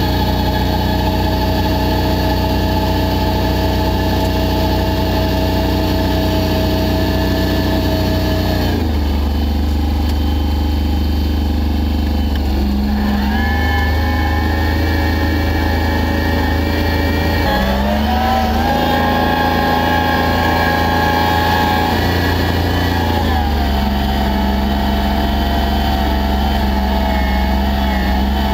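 Massey Ferguson 1020 compact tractor's diesel engine running close by while it works a rear-mounted snowblower. The engine note drops about a third of the way in, then steps up and down several times as the engine speed changes.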